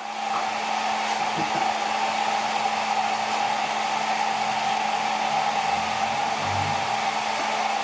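Hair dryer running steadily on its blow setting, a constant airy rush with a steady whine.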